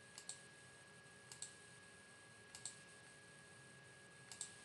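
Computer mouse clicking four times, each a quick pair of faint clicks (button press and release), a little over a second apart. A faint steady high-pitched tone runs beneath.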